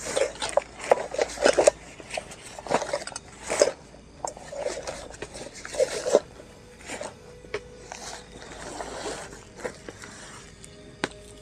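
Rustling of bags and fabric being handled and packed, in many irregular bursts, busiest in the first six seconds and softer after.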